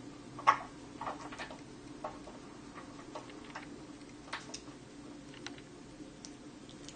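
Scattered small clicks and taps at irregular intervals over a low, steady room hum, with one sharper tap about half a second in.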